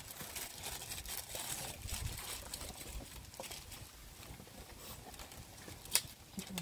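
Dry sticks rustling and knocking faintly as they are handled while a fire is laid, with a sharp click near the end.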